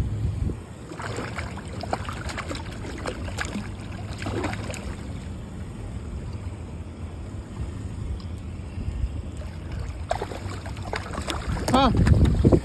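Wind and water sounds around a small boat, with a hooked hammerhead shark moving at the surface alongside. Near the end comes the loudest moment, a splash as the shark thrashes against the side of the boat.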